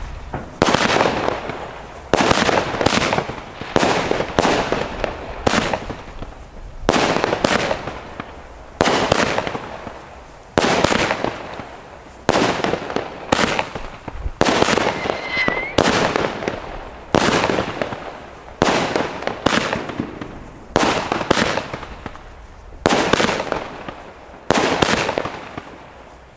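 Pyroland 'Mettwurstspatz' 16-shot firework battery firing shot after shot, one every half second to two seconds. Each shot is a sharp bang that fades over about a second.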